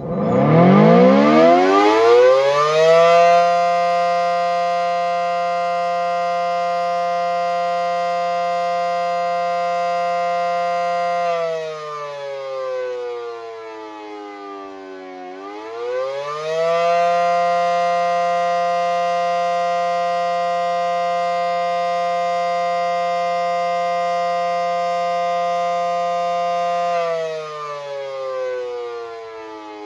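Federal Signal SD10 outdoor warning siren starting up and sounding the attack signal, loud. It winds up from silence to a steady high pitch within about three seconds and holds it. About eleven seconds in it falls away, then rises and holds again, and near the end it starts to fall once more.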